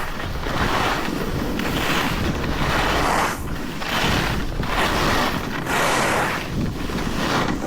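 Skis hissing and scraping over snow in a run of linked turns, a swell of noise about once a second, with wind buffeting the microphone.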